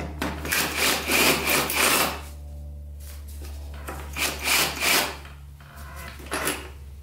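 Cordless drill run in three short bursts, backing out the screws that hold a plastic side panel on a dirt bike, over a steady low hum.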